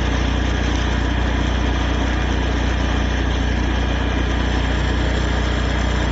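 10 kVA / 300 A welding generator's engine running steadily, with a strong even low hum.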